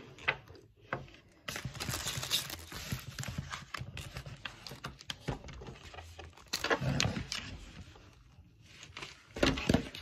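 Clear plastic packaging bag crinkling and rustling as it is handled, with scattered short taps and clicks.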